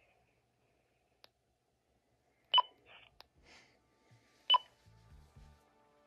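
AnyTone D878UV DMR handheld giving two short beeps about two seconds apart as stations key up briefly and drop off the digital talk group, with faint clicks. Just after the second beep comes a brief burst of garbled low digital audio from a keyed-up station.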